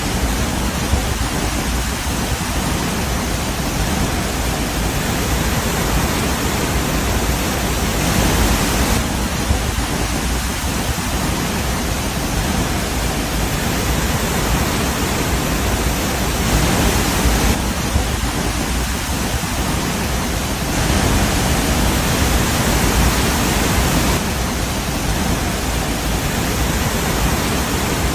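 Loud, steady rushing noise with no distinct events, growing briefly louder and brighter a few times.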